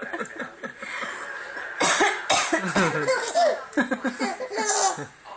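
A person coughing repeatedly in short bursts, mixed with laughter.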